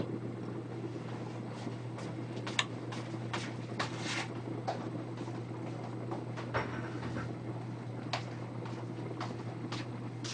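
Lidded pot of yam and shiitake rice porridge boiling on the stove: irregular soft clicks and taps over a steady low hum.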